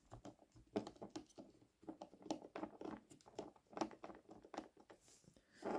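Faint, irregular scratching, rubbing and small clicks of close handling work: something is being rubbed over the dirty motor of a small model locomotive to clean off the black grime.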